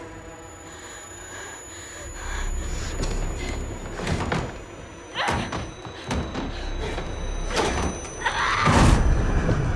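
Horror-film sound design: a low rumbling drone under a thin high steady whine, broken by a run of thuds and whooshes that build up. Near the end comes the loudest hit, with a distorted snarling cry.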